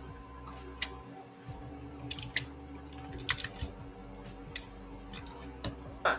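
Irregular clicks and taps on a computer keyboard, with a louder click just before the end, over a faint steady hum.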